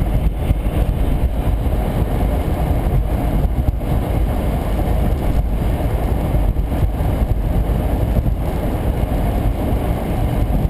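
Steady road and engine rumble inside a car cabin at highway speed, around 90 km/h.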